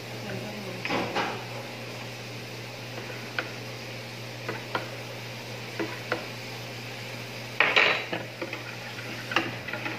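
A metal balloon whisk clinking and scraping against the side of a mixing bowl as eggs are beaten into a liquid batter. The clicks are scattered and irregular, with a louder, quicker flurry of clinks a little before the end. A steady low hum runs underneath.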